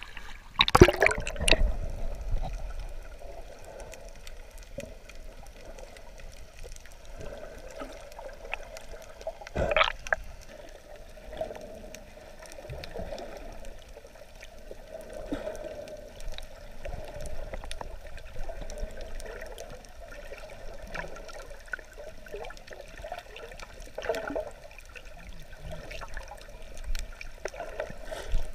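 Water heard through a GoPro's waterproof housing as it goes under and films underwater, a muffled gurgling and sloshing. A loud splash comes about a second in, and sharper knocks or splashes come at about ten seconds and near the end.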